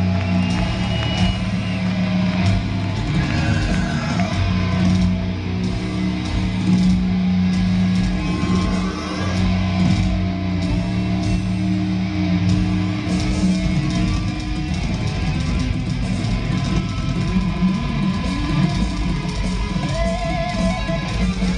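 Live heavy metal band playing: distorted electric guitars and bass holding loud, sustained low notes.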